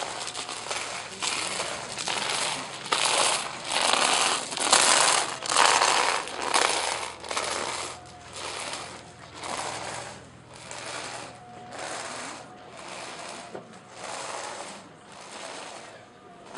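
Feet shuffling and scraping on street paving in a slow, even rhythm of about two steps a second. The steps grow louder to a peak about five seconds in, then fade as they pass.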